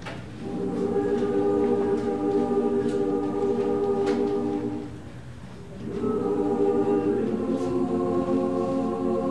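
A women's choir singing unaccompanied in long held chords: one chord swells in just after the start and holds, breaks off for about a second near the middle, then a second chord enters and holds.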